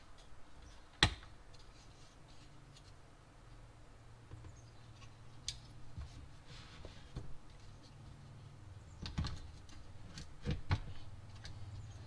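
Faint clicks and taps of a GeForce GTX 750 Ti graphics card being handled and pressed into a motherboard's PCIe slot. A sharp click about a second in, scattered light taps, and a run of clicks near the end as the card is seated.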